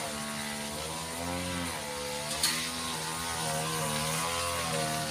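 A small engine running steadily nearby, its pitch wavering slowly up and down. A single short click comes about halfway through.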